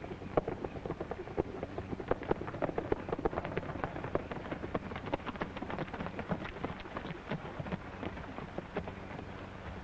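Hoofbeats of three horses ridden down a dirt street, a dense clatter of hoof strikes that thins out near the end. A steady low hum from the old film soundtrack runs underneath.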